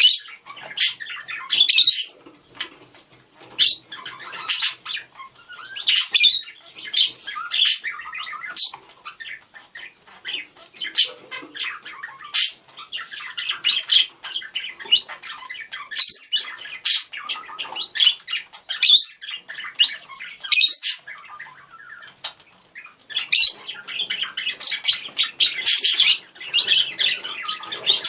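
Several budgerigars calling to one another: quick high chirps, squawks and warbling chatter in irregular clusters.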